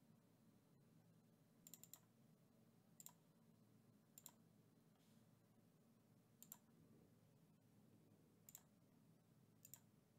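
Faint computer mouse clicks, one every second or two, a couple of them quick double clicks, over near silence.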